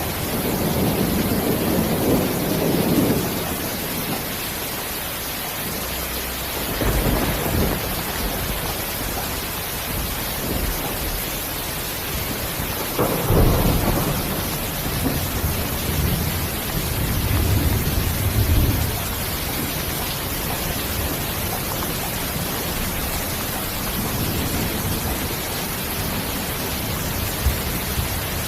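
Steady rain hissing, with low rolls of thunder that swell and fade several times; the strongest comes about halfway through.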